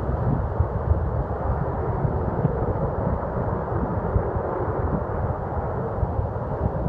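SpaceX rocket engine firing on a test stand, heard from a distance as a steady low rumble.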